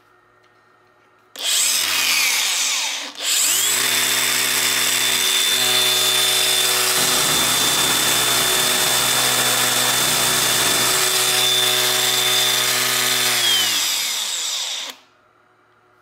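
Cordless angle grinder with a homemade chain-link disc starting up, cutting out briefly and restarting, then running free with no load and a steady high whine. Near the end it is switched off and winds down.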